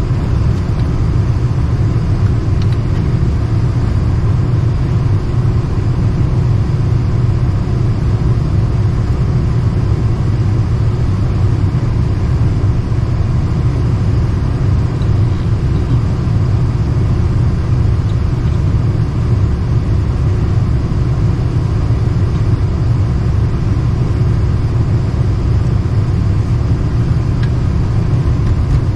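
Lennox package unit's indoor blower running with a steady rumbling hum, while the unit's call for heat gets no ignition.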